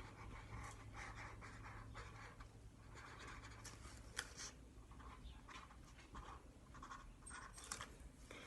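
Felt-tip marker drawing on a cardboard toilet-paper tube: faint strokes in short runs with pauses between them, and a few light clicks.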